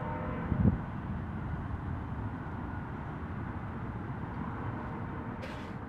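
Wind blowing on the microphone in open ground, a steady low rumble with a stronger gust about half a second in.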